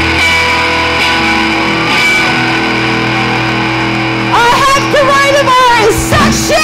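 Live punk rock band playing: electric guitars and bass ring out on held chords, then the singer's voice comes in about four seconds in.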